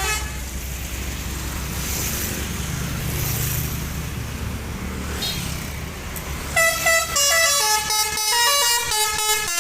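Bus engine and traffic noise, then about six and a half seconds in a Basuri V3 telolet multi-tone bus horn plays a quick melody of stepped notes, changing pitch several times a second.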